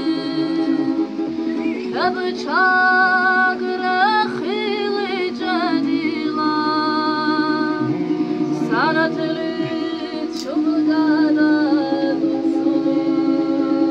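Women singing a song together, with a small long-necked plucked string instrument strummed steadily as accompaniment.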